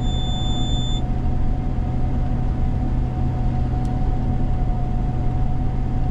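Steady low drone of a Gleaner combine harvesting, heard from inside the cab, with a steady hum running throughout. A single high beep lasts about a second at the start.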